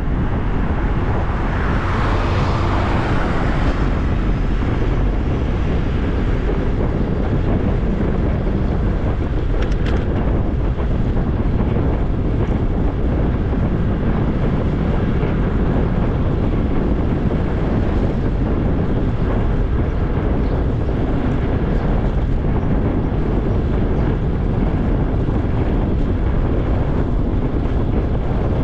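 Wind buffeting the microphone of a camera riding along on a moving bicycle, a steady low rumble. A brief louder hiss rises and fades about two seconds in.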